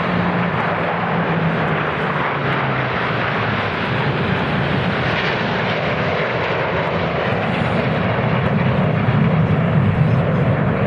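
Jet aircraft flying past in formation, with the steady rushing noise of their jet engines. A low hum drops in pitch over the first few seconds, and the sound grows a little louder near the end.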